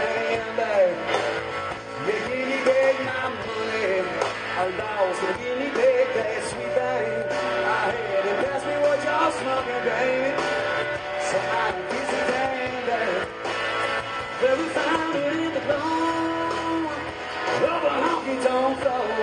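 Live blues-rock band playing an instrumental passage: electric guitar lead with bent notes over bass guitar and drums.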